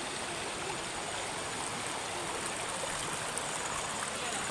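Steady rush of a shallow river flowing over rocks and stones.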